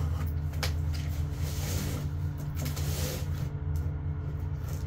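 Scissors cutting the packing tape on a cardboard box: a few sharp clicks and a short rasping cut, over a steady low rumble.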